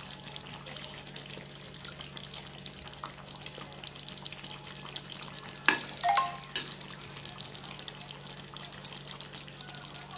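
Fish curry simmering in a clay pot, a steady bubbling hiss, with a spoon clicking against the pot a few times, loudest about six seconds in. A steady low hum runs underneath.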